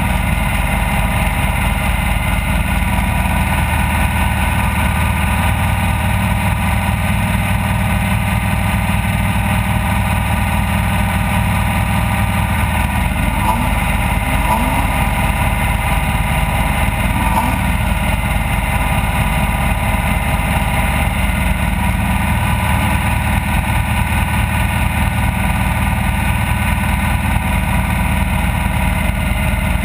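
Off-road race vehicle's engine running continuously at a steady pitch and loudness, with only small changes in pitch around the middle.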